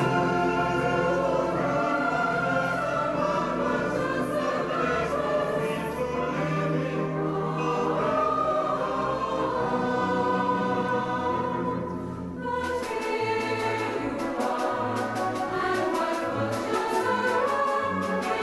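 Mixed choir of men and women singing a sustained musical-theatre number over instrumental accompaniment. The music thins briefly about twelve seconds in, after which low accompanying notes pulse in a rhythm.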